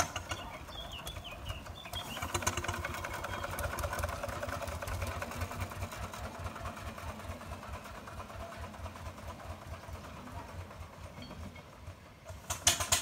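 Miniature steam traction engine running along, its exhaust beating quickly and evenly, loudest a few seconds in as it passes and then fading as it moves away. A short burst of hiss comes near the end.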